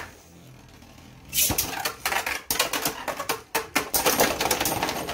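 Beyblade Burst spinning tops in a plastic stadium: one top spins quietly at first, then from about a second and a half in the two tops clatter against each other and the stadium in rapid hard knocks, and one top bursts apart.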